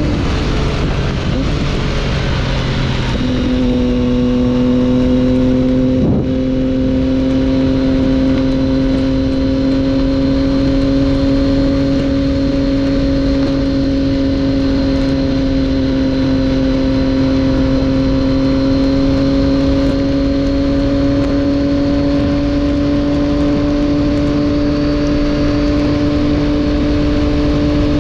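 Triumph Daytona 675's inline three-cylinder engine through an Arrow exhaust, heard from on the bike over constant wind rush. The engine note drops in the first second or so. From about three seconds in it holds steady, slowly rising in pitch as the bike cruises, with a brief click about six seconds in.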